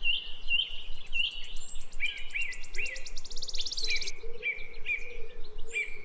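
Birds chirping outdoors: a short high call repeated about twice a second, joined by a fast, high ticking trill from about one to four seconds in.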